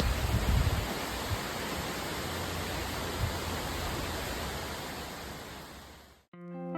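Steady rushing outdoor noise, with low rumbles in the first second, that fades out near the end; plucked guitar music starts just after it stops.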